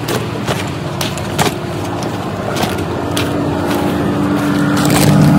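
Coach bus engine and road noise droning inside the passenger cabin, with scattered knocks and rattles. The drone grows louder toward the end.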